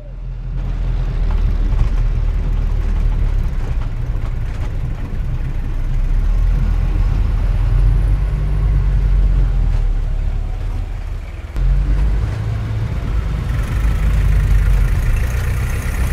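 City street traffic: a steady low rumble of motor vehicles running, dipping briefly about eleven and a half seconds in. Fainter higher sounds join near the end.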